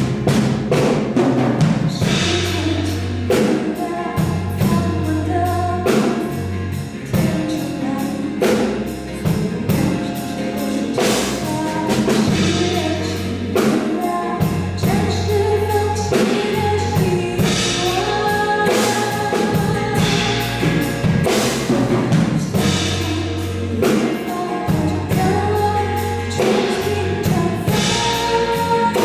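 Live band music: a song played with a steady drum beat, a held bass line and melodic instruments.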